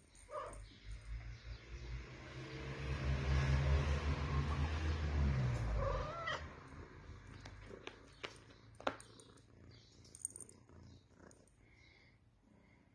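Adult calico cat purring close up while being stroked, a steady pulsing rumble that fades out about six seconds in. A brief meow follows, then a few light clicks.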